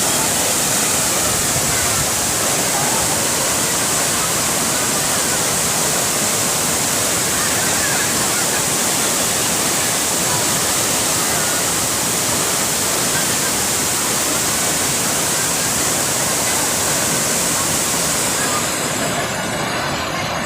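Heavy waterfall, about 50 m high, rushing down: a loud, steady wash of falling water. The high hiss thins out near the end.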